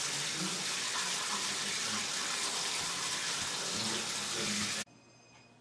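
Water running steadily from a tap into a sink, cutting off abruptly near the end and leaving a quiet room.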